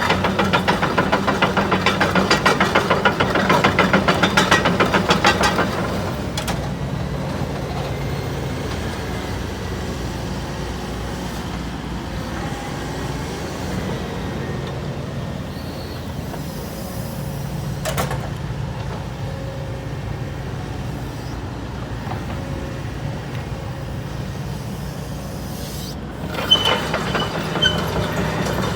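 Hitachi ZX135US-5B excavator's diesel engine running, loud with a fast, even pulsing for the first several seconds, then settling to a steadier, quieter run. A single sharp click comes in the middle, and near the end the sound picks up again with high-pitched squeaks.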